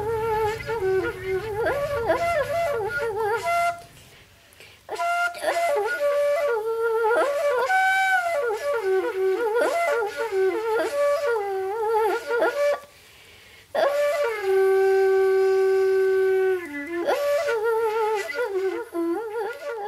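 Soundtrack music: a solo wind-instrument melody of long held notes and quick ornamented runs, breaking off briefly about four and thirteen seconds in.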